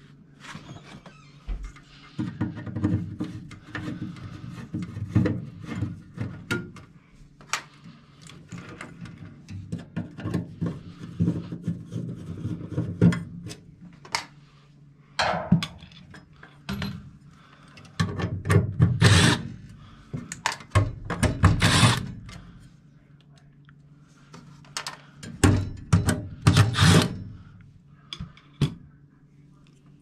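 Hand-work noise: tools clicking and knocking in a tool bag, then wires and metal being handled inside a furnace cabinet, with scattered clicks throughout and several loud scraping rubs in the second half.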